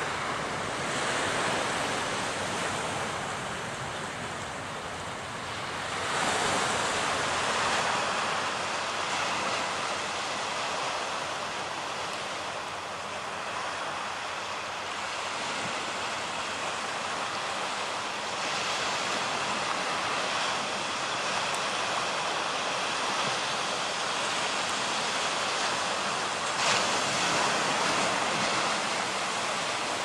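Sea waves washing on a rocky shore: a steady surf hiss that surges louder every so often as a wave comes in.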